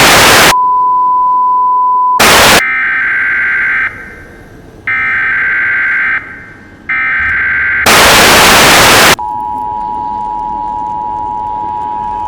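Emergency Alert System broadcast tones with loud bursts of static. A steady single tone is followed by three screeching digital SAME header bursts about a second apart, then another burst of static, then the steady two-tone EAS attention signal.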